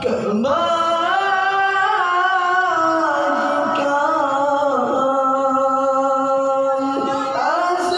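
A man singing an Acehnese qasidah solo into a microphone, holding long notes with sliding, ornamented turns. There is a short break near the end before a new phrase rises.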